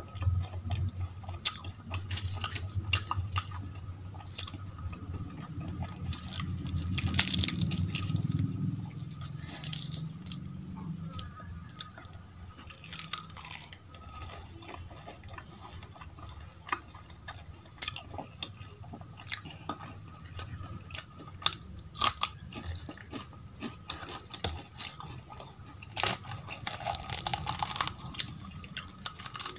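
Close-miked chewing and biting of crisp, deep-fried aloo kachoris and potato curry, with wet mouth clicks and crunching. Near the end, a kachori's fried crust crackles loudly as it is torn open by hand.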